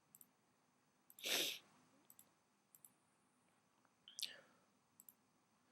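Computer mouse clicking a few times, single clicks and quick press-and-release pairs. There is a breath into the microphone about a second in and another short breathy sound around four seconds in.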